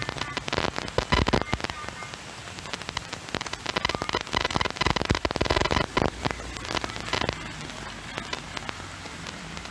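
Heavy rain falling, with a dense spatter of close drop impacts that comes in louder spells about a second in and again midway.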